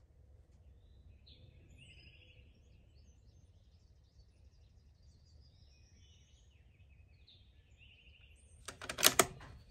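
Birds chirping and whistling faintly over low outdoor background noise, then near the end a brief cluster of sharp clacks.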